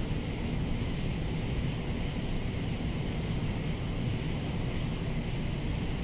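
Steady chorus of cicadas, a constant high buzz, over a louder low steady rumble.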